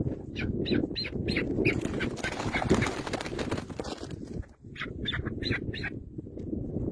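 A bird squawking in two quick runs of short, high calls, one about half a second in and another about five seconds in, over a steady low rumbling noise.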